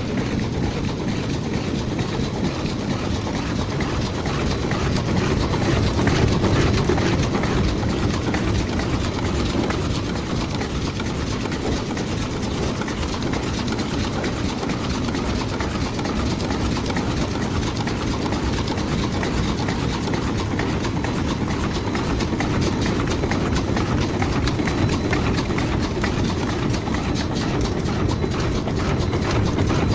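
Automatic eye drop bottle cartoning machine running: a steady mechanical din with a dense, fast clatter of small clicks.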